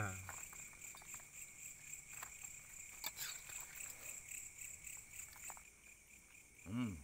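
Crickets and other night insects chirping steadily in two high, unbroken bands, with faint small clicks; a short voiced hum from a person near the end.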